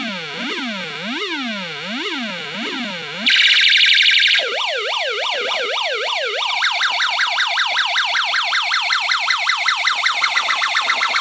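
Electronic 16-sound siren module stepping through its tones: a slow up-and-down wail, a short steady shrill buzz about three seconds in, a faster up-and-down sweep, then from about six and a half seconds a rapid warble repeating several times a second.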